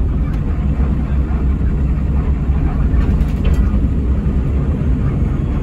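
Hino RG230K coach driving, its engine and running gear giving a steady low rumble.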